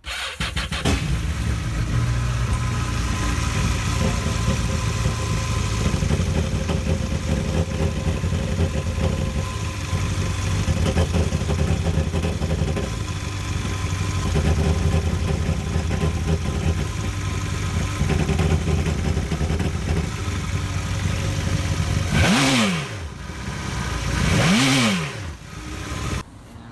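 Yamaha 242 jet boat engine running steadily, then revved up and back down twice near the end before it drops off. It is a test run to check whether a misfire caused by water on the spark plugs is cured.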